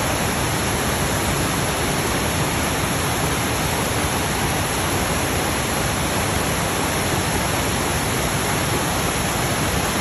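Shepherd's Dell waterfall: a steady, even rush of falling water.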